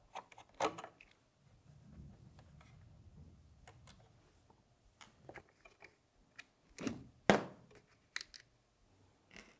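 Scattered small clicks and taps of a screwdriver and small screws being worked loose and lifted out of an airsoft rifle, with one sharper clack a little after seven seconds in.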